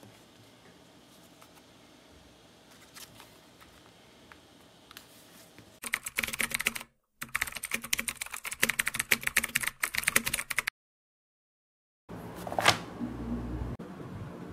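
Computer keyboard typing, a fast run of keystroke clicks lasting about five seconds with a short break near the start, ending in a sudden cut to silence. After the silence comes a single sharp handling sound over a low hum.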